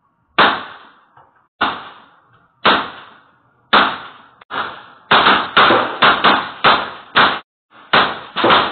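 Gunshots, each with a trailing echo: four single shots about a second apart, then a rapid string of about seven shots, then a few more near the end.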